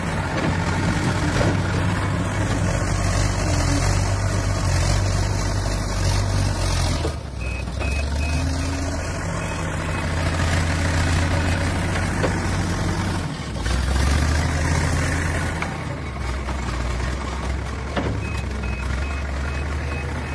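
Backhoe loader's diesel engine working under load, its pitch shifting a few times as the machine digs, backs up and raises its loaded bucket. A reversing alarm beeps in two short runs, about a third of the way in and again near the end.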